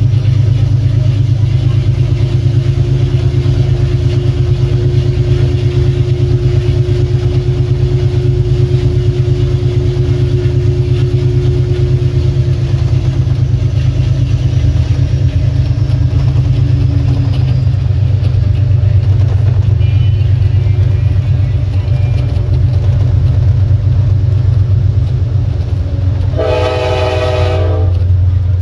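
Amtrak Dash 8-32BWH diesel-electric locomotive running under power, with its 12-cylinder GE diesel giving a loud, steady low drone. Near the end comes one short blast of its Nathan K5LA five-chime air horn, a chord of several tones lasting about a second and a half.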